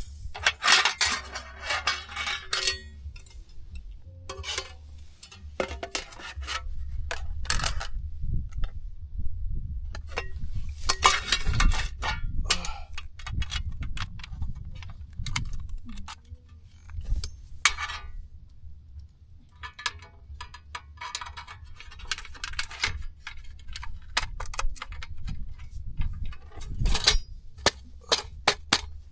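Hard objects being handled: clusters of rapid clinks and clatters with short pauses between them, over a low steady rumble.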